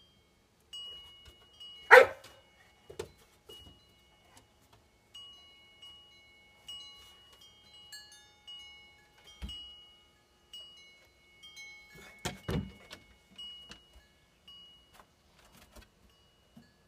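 Wind chimes ringing, their few high notes struck again and again and left to ring. A few sharp knocks cut in, the loudest about two seconds in and another cluster a little past the middle.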